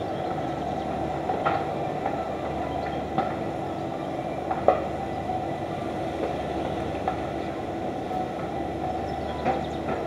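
Steady low rumble of city background noise, with a few short sharp clicks, the loudest a little before halfway.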